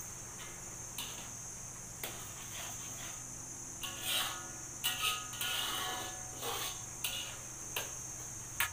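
A metal ladle scraping and knocking against a steel wok as a sauce is stirred, with several short knocks and a louder stretch of scraping in the middle. A steady high-pitched hiss runs underneath.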